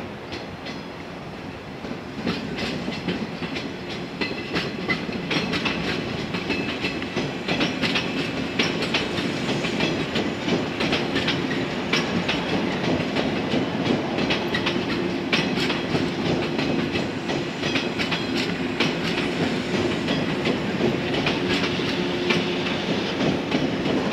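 Two coupled 115-series electric multiple-unit trains running past, their wheels clacking rhythmically over the rail joints. The rumble grows louder over the first several seconds, and a steady hum joins it in the second half.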